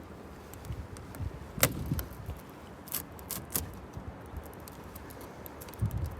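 Scattered sharp clicks and light metallic clinks from hand tools and hardware being handled during greenhouse assembly, over a low rumble.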